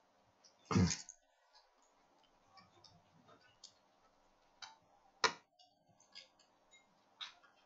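Scattered sharp clicks and taps of small parts and tools being handled on a repair bench while an opened iPhone 6s is made ready to boot, with two louder clicks about a second in and about five seconds in, over a faint steady hum.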